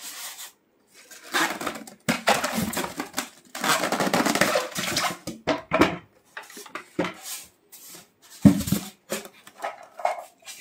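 Handling noise of a Usha Janome Stella sewing machine being lifted out of its polystyrene packing tray and set on a glass-topped table: irregular rubbing and rustling, then a few short scrapes and a sharp knock about eight and a half seconds in.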